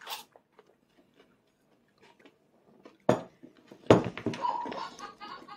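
Faint sips and small clicks as a toddler drinks from a plastic sippy cup, then a sharp knock about three seconds in and a louder knock about a second later, followed by a busy clatter of small tableware sounds.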